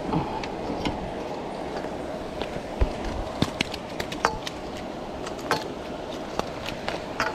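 Scattered knocks and taps of a metal-framed landing net holding a freshly caught fish being handled on a concrete walkway, over a steady background hiss.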